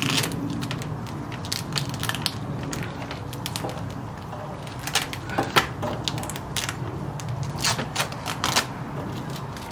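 Plastic guttering fittings clicking and creaking as they are handled and worked into place at the gutter outlet: a string of irregular clicks and knocks, the loudest about halfway through.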